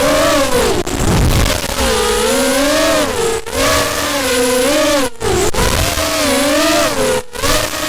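FPV quadcopter's brushless motors (Cobra 2204 2300KV) and 5-inch propellers whining, the pitch rising and falling continuously with throttle. The sound drops out briefly a few times, and it is heard from a camera mounted on the quad.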